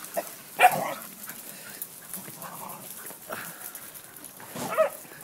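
A dog giving a short, sharp bark about a second in and another short call near the end.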